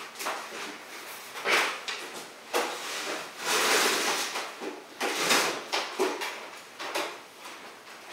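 Metal-framed folding screen panels being shifted and unfolded by hand: a series of knocks and clanks, with a longer scrape about three and a half seconds in.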